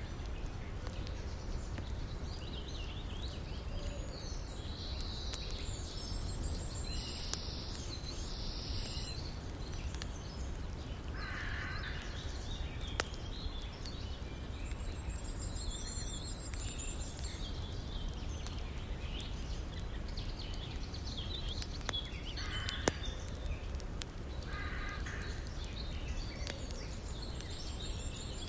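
Outdoor river-and-campfire ambience: the steady low rush of a river, with occasional sharp crackles from the fire and birds calling over it, including a short high trill heard three times and a few lower calls.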